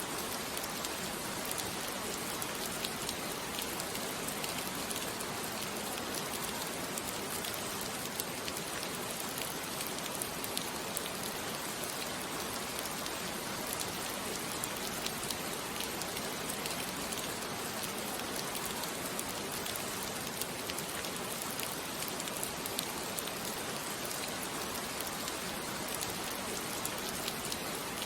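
Steady rain, a dense even patter of drops falling on a surface with no let-up.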